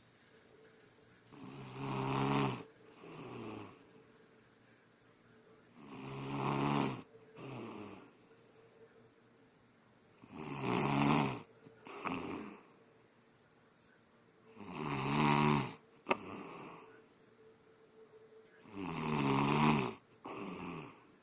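A woman snoring in her sleep: five strong snores roughly four seconds apart, each followed by a shorter, quieter breath.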